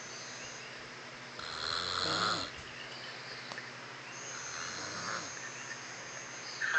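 A person asleep with his mouth open, snoring, one snore about every three seconds.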